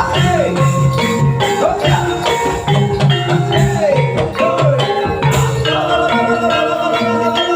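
Javanese gamelan music accompanying a kuda lumping dance: struck metallophones ringing steady notes over a repeating drum pattern, with rattling, jingling percussion and frequent sharp strikes throughout.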